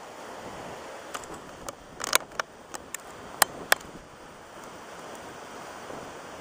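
Steady wind noise on the microphone over a choppy lake. About one to four seconds in comes a cluster of sharp clicks and taps from the caught fish and lure being handled close to the microphone.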